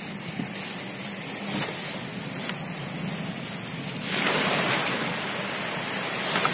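Small river boat under way, its motor running steadily under a rush of wind and water; the rush gets louder about four seconds in.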